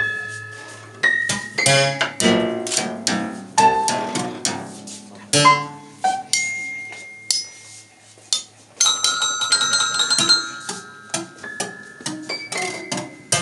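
Strings inside an open grand piano struck with a wooden stick, giving irregular single notes and clusters that ring on and die away. About nine seconds in, a run of high, bell-like tones rings together for a couple of seconds.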